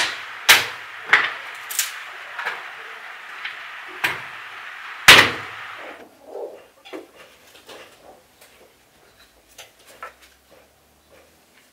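Hatchet chopping thin boards into kindling: about eight sharp strikes over five seconds, the loudest at the start and about five seconds in. After that come soft knocks and footsteps as the split sticks are carried in.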